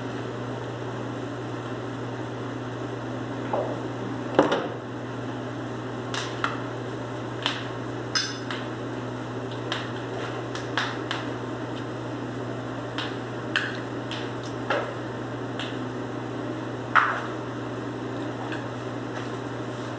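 Scattered light taps and clicks, about a dozen spread unevenly, the loudest about four seconds in and another near the end, over a steady low hum.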